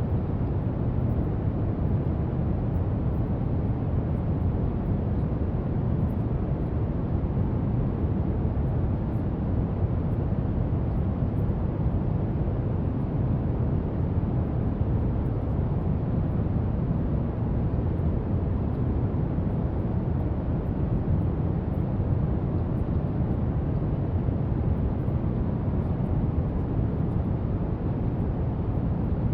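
Steady brown noise: an even, deep hiss, heaviest in the low end, with no change throughout.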